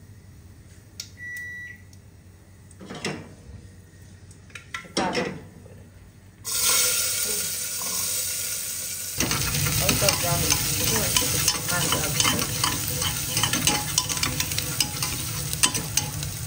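Chopped onions frying in hot oil in a pressure cooker on a gas stove. A few light knocks of cookware, then a sudden steady sizzle about six seconds in, which grows louder and crackly about three seconds later.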